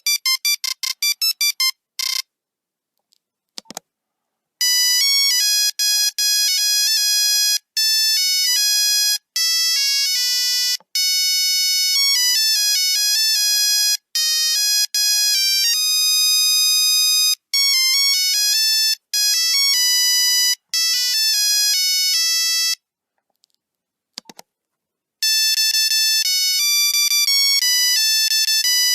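Nokia 3310 monophonic ringtones played one after another as beeping electronic melodies. A fast run of short beeps ends about two seconds in. After a pause of a couple of seconds, a longer beeping tune plays in phrases broken by brief gaps. After another short pause, a new tune starts near the end.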